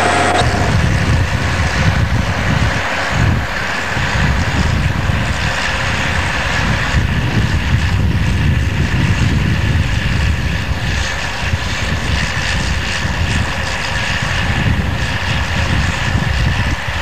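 Crawler bulldozer's diesel engine running steadily while working, with a brief dip about three seconds in.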